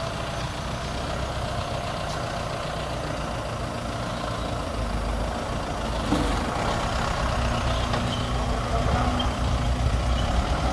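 Tata Sumo's diesel engine running steadily, with a single knock about six seconds in, after which the engine gets a little louder.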